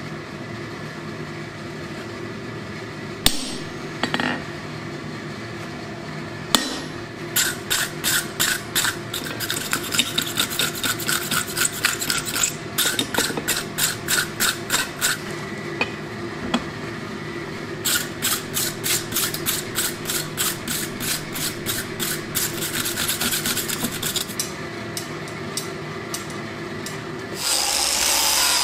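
Hand hammer striking red-hot steel on an anvil: a few single blows, then long runs of quick ringing blows at about three a second, broken by a short pause, over a steady hum. Near the end an angle grinder starts up and grinds the steel.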